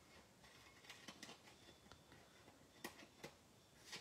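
Small paper snips trimming the edge of a cardstock and paper panel: a few faint, sharp snips, the clearest near the end, with near silence between them.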